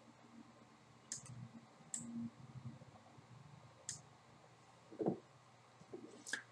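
Faint, sharp computer mouse clicks, about four of them spaced irregularly, with a few softer low thumps between them.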